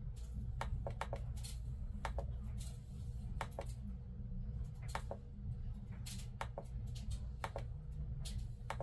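Scattered light clicks of a computer mouse and keyboard, a dozen or so at uneven intervals, while decoder settings are saved in programming software, over a steady low hum.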